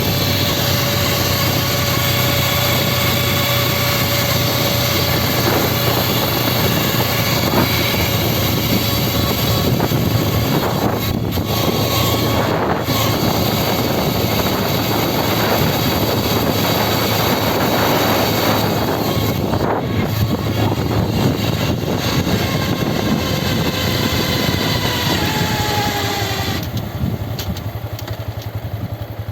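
Honda Grom (JC92/MSX125) 125cc single-cylinder motorcycle riding, with a steady whine from its 5-speed transmission sounding over the engine and wind noise. Near the end the whine falls in pitch as the bike slows. The fault was traced to a heat-scorched output shaft at the second-gear section.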